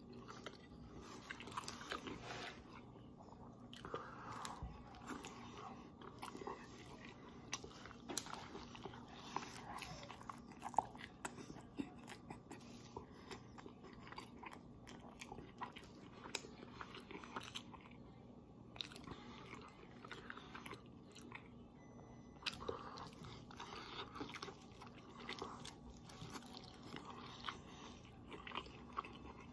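A person eating pesto fusilli straight off a plate with no hands: close-up wet chewing and biting, with many small clicks and smacks of lips and teeth.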